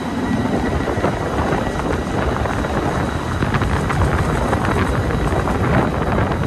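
Strong gale-force wind buffeting the phone's microphone, a steady rumbling rush.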